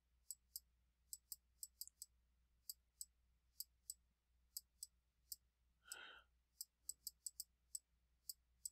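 Faint, irregular clicks of a stylus tapping a tablet screen as words are handwritten, about two or three a second, with a soft breath about six seconds in.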